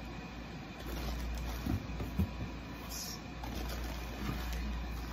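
Groceries being handled in a cardboard box: a couple of soft knocks about two seconds in and a brief rustle a second later, over a steady low hum.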